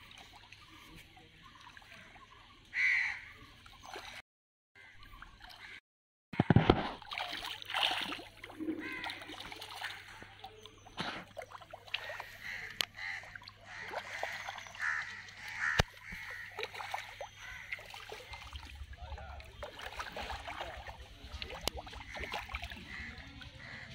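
Fish splashing and sloshing at the surface of a pond near the bank, in irregular bursts, with a few bird calls over it.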